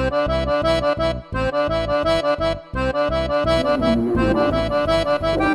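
Instrumental break in a children's song: a quick, bouncy melody of short notes over a regular bass beat, with no singing.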